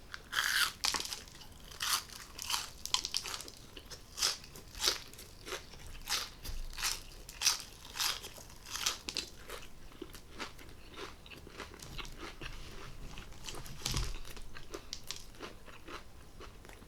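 Close-up crunching and chewing of crunchy fast food, with a quick run of crisp bites and chews that thins out about halfway through, and one heavier crunch near the end.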